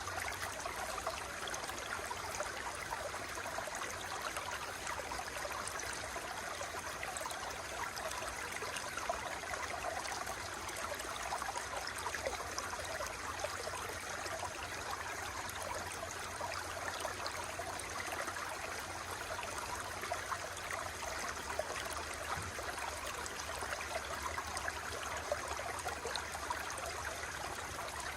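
Running water, like a stream, flowing steadily with a fine, even texture.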